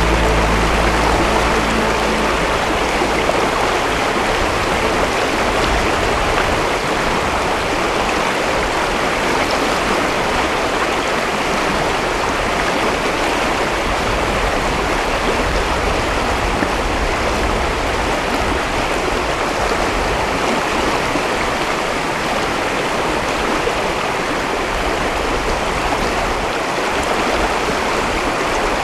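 River rapids rushing: a steady, even noise of fast water running over a rocky riffle. The last notes of background music fade out in the first few seconds.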